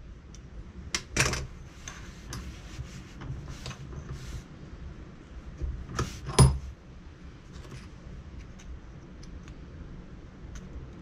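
Small steel pieces and hand tools clinking and clattering at a bench vise. There are two louder metal clanks, about a second in and about six seconds in, the second with a short high ring, and lighter ticks between them.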